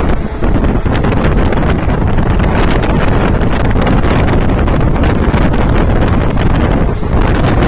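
Heavy wind buffeting the microphone over the steady rumble of a passenger train running at speed, heard from on board.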